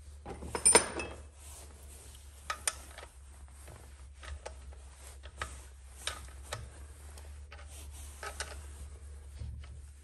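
Metal pipe fittings clinking and tapping against the air compressor's metal outlet as they are handled and threaded on. A cluster of sharp clinks about a second in is the loudest, followed by scattered single clicks, over a low steady hum.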